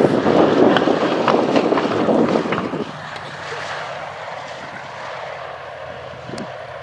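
A B-25 Mitchell bomber's twin radial engines running as it lands, with wind buffeting the microphone. The wind rumble is loud for the first three seconds, then drops off, leaving the quieter steady engine sound.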